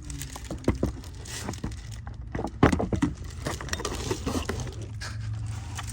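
Plastic cabin-air-filter cover of a Toyota Prius being worked back into its slots behind the glove box: a series of irregular plastic clicks, knocks and scrapes, the loudest about two and a half seconds in, over a steady low hum.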